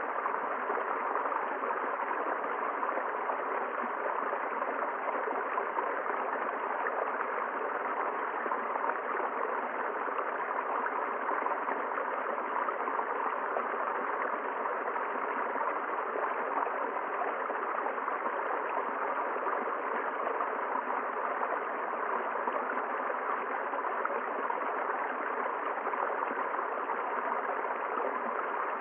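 A river running: a steady, even rush of flowing water over rocks.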